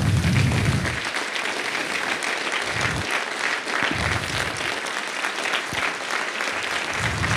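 Audience applause: many people clapping together. It starts abruptly and holds steady.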